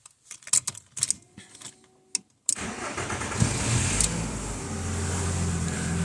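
1995 VW T4's ACU 2.0-litre four-cylinder petrol engine being started while still fairly cold: a few small clicks, then about two and a half seconds in it cranks, catches and settles into a steady idle.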